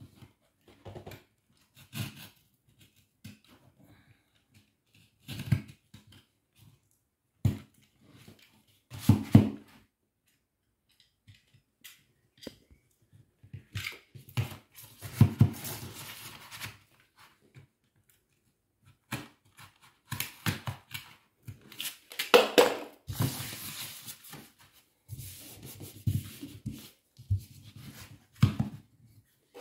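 Snap-off utility knife cutting wallpaper around an electrical socket, guided along a plastic smoothing spatula: irregular scraping, paper rustling and small tearing sounds, with light knocks of the tools on the wall, the longest stretches about halfway and again two-thirds through.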